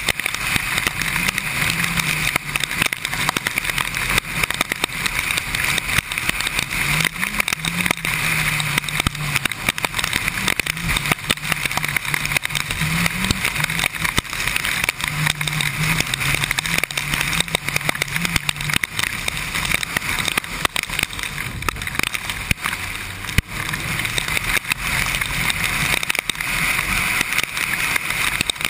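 Kawasaki Ninja sport bike riding in heavy rain: a loud, steady rush of wind and road spray, with many sharp ticks of raindrops hitting the camera. The engine's low note wavers up and down through the first two-thirds, then is buried under the wind noise.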